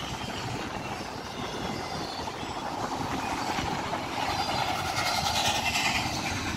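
Double-stack intermodal freight train's well cars rolling past close by: a continuous rumble and clatter of steel wheels on the rails. It gets louder, with more high-pitched noise, about five seconds in.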